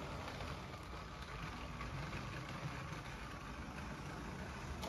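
Motorised LEGO train running on plastic track: a steady low rumble of the train motor and wheels on the rails.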